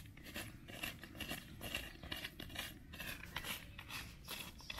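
Quick, irregular scraping and crunching strokes, about three a second, as ember-roasted plantains are taken out of the hot coals and ash and scraped.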